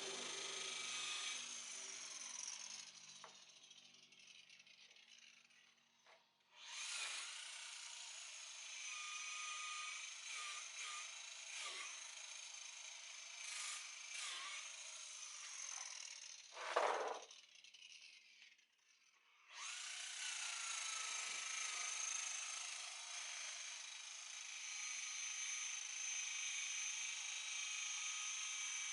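Electric buffer running with a steady high whine while compounding oxidized fibreglass. It winds down twice for a few seconds, with a few short knocks and one louder burst of noise in between.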